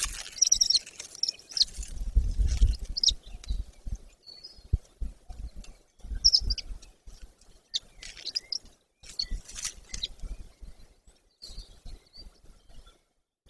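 Short, high-pitched chirps come in small clusters every second or two, typical of golden eagle chicks calling in the nest. Irregular low thumps and rumbling run beneath them.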